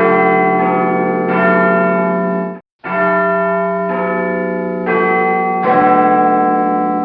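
Church bells ringing, a new bell struck about every second so that their tones overlap and ring on. A little under three seconds in the sound cuts out for a moment and starts again.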